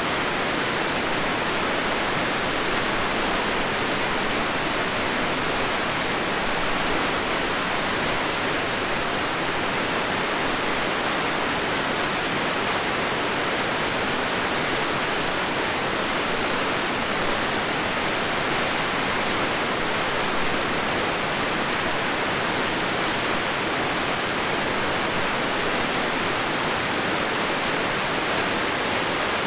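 Steady rush of fast-flowing whitewater in the Crystal River, an even, unbroken noise.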